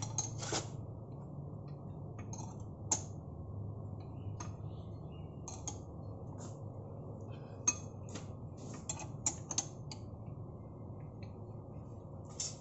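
Kaeser direct-drive compressor running with a steady low hum, with scattered sharp metallic clinks and ticks.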